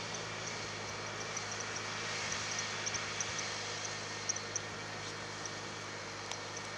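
Tractor engine running steadily under the load of a seven-body chisel plough working the soil, as it drives slowly away. Faint short high-pitched chirps come and go over it.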